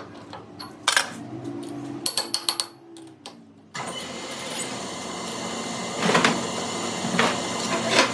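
Metal workshop sounds: a few sharp clicks and taps, then a steady machine noise starts suddenly about four seconds in, with a few louder knocks on top.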